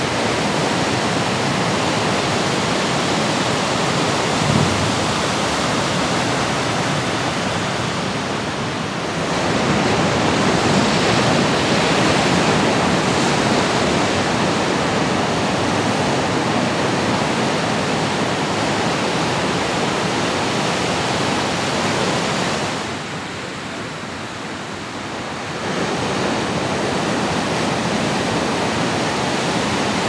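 Ocean surf: waves breaking and washing ashore in a steady rushing noise. It swells about a third of the way in and drops off briefly near the end.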